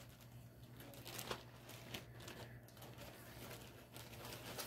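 Faint handling noise: light rustles and a few small clicks, likely from the cross-stitch piece on its fabric being moved about, over a steady low hum.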